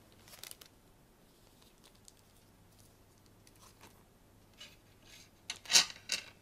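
Paper and plastic food packaging rustling and crinkling as it is handled, in a few short bursts, the loudest cluster near the end.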